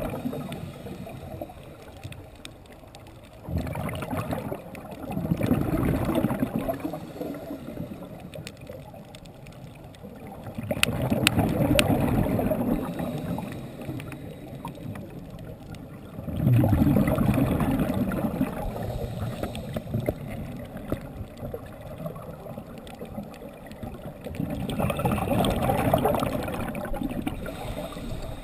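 Scuba regulator underwater: bursts of exhaled bubbles gurgling and crackling for two or three seconds at a time, repeating about every five to six seconds, with quieter spells between them while the diver breathes in.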